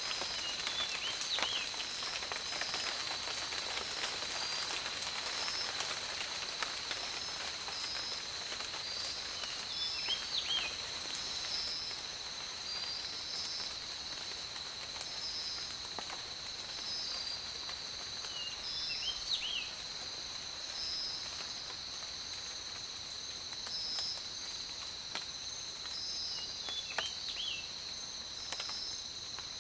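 Forest ambience: a steady high insect drone, with a second insect pulsing about every second and a half, and a bird giving a short call four times, about every eight or nine seconds, over a faint hiss.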